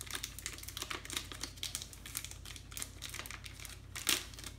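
Paper swab wrapper crinkling as it is worked open by hand, in quick irregular crackles, with a louder crackle about four seconds in.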